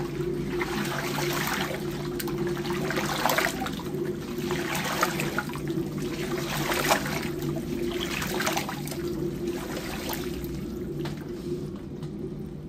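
A hand sloshing and swirling warmed liquid fat around a large stainless-steel mixer bowl, in irregular watery swishes and splashes, over a steady low hum.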